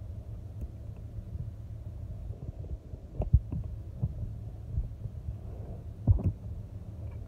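Dull low knocks and bumps from gloved hands handling the clutch switch wiring and connector under a truck's dash, the two loudest about three and six seconds in, over a steady low hum.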